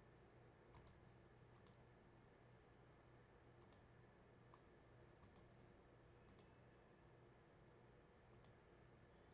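Faint computer mouse clicks in near silence, coming as about six quick double clicks spread through, over a low steady room hum.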